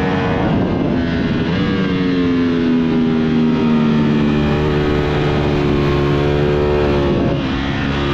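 Ducati Panigale V4 S's V4 engine on the move. The note falls for a couple of seconds, then climbs steadily under acceleration, with a brief dip about seven seconds in at a gear change.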